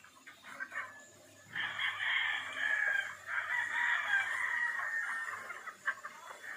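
Roosters crowing: two long crows, the first starting about a second and a half in and the second following right after, among hens clucking.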